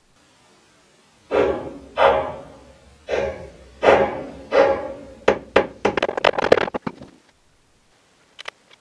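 Hand-tool work on an aluminium gear ring: about five loud knocks, each ringing briefly, followed by a fast run of sharper clicks and rattles, with two faint clicks near the end.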